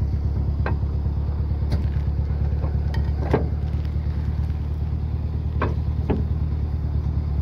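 Pickup truck engine idling steadily, with a few short clicks over it.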